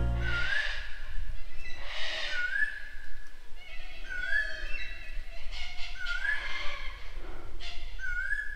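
Unidentified bird calling repeatedly, a short rising whistle that levels off, given about five times, one every one and a half to two seconds. Harsher, scratchy bird calls come in between the whistles.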